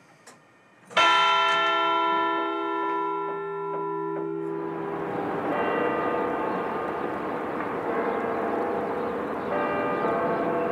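A large church bell struck once about a second in, ringing with many overtones and a long decay. A few seconds later the sound gives way to several church bells of different pitches ringing together over a steady rushing noise, with another bell strike near the end.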